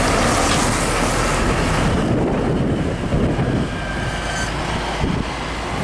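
Hino 500 dump truck's diesel engine and tyres passing close by through a bend. The noise thins out about two seconds in as the truck moves away, leaving a lower rumble.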